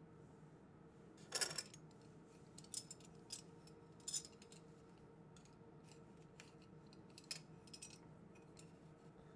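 Metal parts of a hand-cranked circular sock knitting machine clicking and clinking as it is handled: a handful of sharp clicks, the loudest about a second and a half in with a brief ring, over a faint steady hum.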